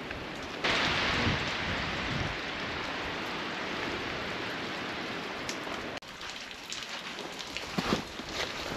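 Steady rushing of running water, a snow-melt swollen stream, starting suddenly about half a second in and cutting off abruptly about six seconds in. Quieter scattered crackles and knocks follow.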